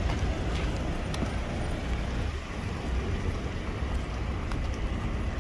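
Roadside traffic noise: a steady rumble of cars on the street alongside.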